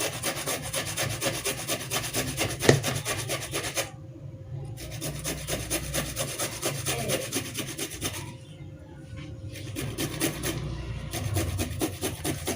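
Fresh ginger root grated on a metal cheese grater: a quick run of scraping strokes, pausing briefly about four seconds in and again about eight and a half seconds in, with one sharper knock about two and a half seconds in.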